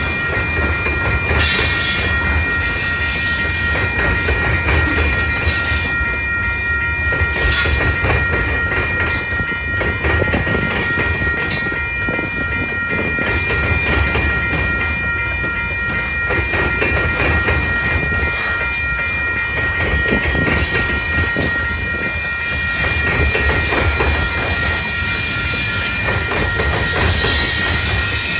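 Freight train of covered hopper and tank cars rolling past at a grade crossing: a steady low rumble of wheels on the rails, with swells of hiss every few seconds. A steady high-pitched tone runs under it throughout.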